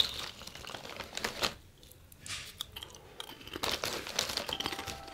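Plastic crisp bag crinkling on and off as a hand rummages inside it, with a brief lull about two seconds in.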